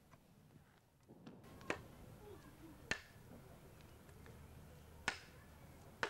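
Wood fire crackling: three sharp single pops a second or two apart over a faint steady background.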